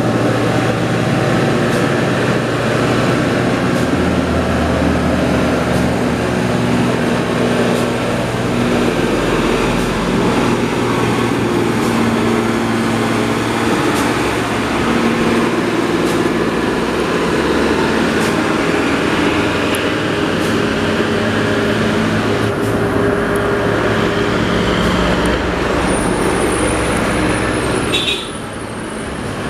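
Old Mercedes-Benz diesel truck engine labouring up a grade under a heavy load: a loud, steady drone whose pitch shifts a few times as the truck comes up and passes. Near the end it gives way to quieter road traffic.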